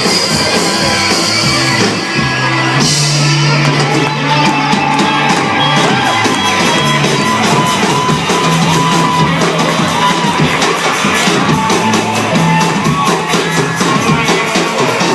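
Live rock band playing the loud instrumental close of a song, with fast, steady drum and cymbal hits building toward the end and shouts over the music.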